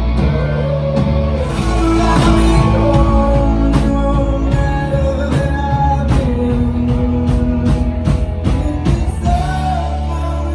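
Live rock band playing: guitars and bass over drums keeping a steady beat.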